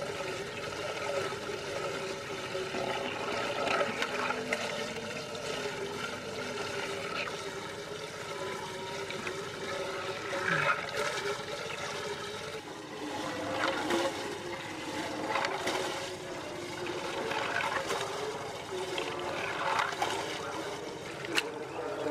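Water swirling and draining in a whirlpool vortex, a steady rushing with brief louder splashes every couple of seconds in the second half. A faint wavering hum runs underneath.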